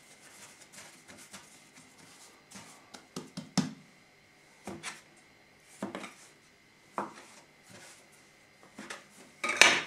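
Dough scraper chopping through bread-roll dough and knocking on a floured wooden board: a few separate strokes roughly a second apart, the loudest about a third of the way in. Just before the end comes a louder, brief rustling scrape.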